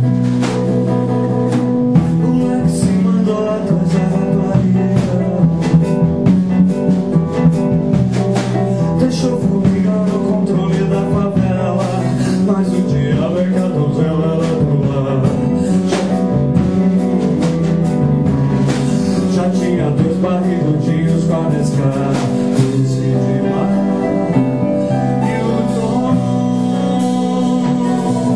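Live band playing a song: guitar over steady percussion, with singing.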